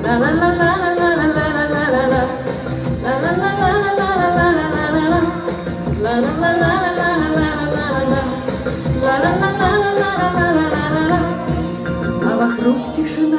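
A woman singing a Russian pop song live into a handheld microphone over a recorded backing track, in phrases of about three seconds each.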